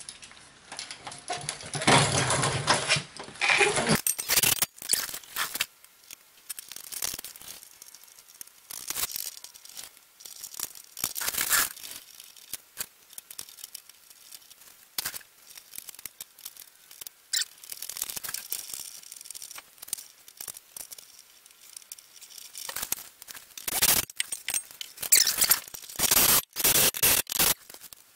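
A wrench working nuts onto a receiver hitch's mounting bolts: irregular metal clicks, scrapes and rattles in short bursts with pauses between them, busiest about two to four seconds in and again near the end.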